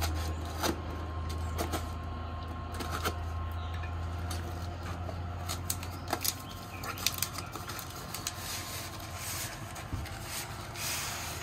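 A knife slitting the packing tape on a cardboard box, then the cardboard flaps scraping and rustling as the box is opened and a wrapped package is pulled out, with scattered sharp clicks and scrapes over a steady low hum.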